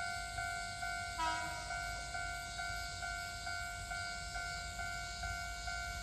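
Japanese level-crossing alarm ringing, an even two-tone ding repeating a little over twice a second, the warning that a train is approaching. About a second in, a train's horn gives a short, brief toot.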